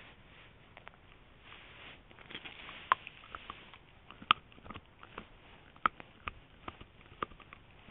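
Dachshund chewing and gnawing close up on a piece of cartilage: irregular crisp crunches and clicks of teeth, with a few louder crunches about three, four and six seconds in.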